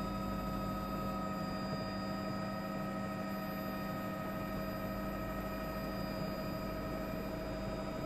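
Steady helicopter drone, an even hum of several constant tones that does not change.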